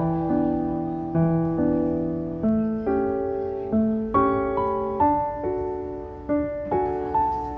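Background music: a gentle piano melody of separate notes, each struck and left to fade, about two a second.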